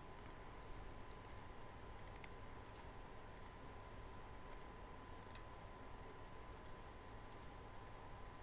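Faint, scattered clicks from a computer mouse and keyboard, about a dozen spread irregularly over a low hiss, with a faint steady high tone underneath.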